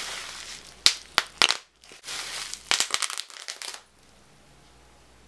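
Plastic bubble wrap packaging being crumpled and handled, rustling with several sharp snaps, a cluster about a second in and more near three seconds, stopping about four seconds in.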